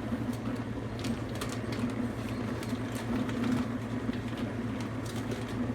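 Dishwasher running with a steady low hum, with a few faint clicks over it.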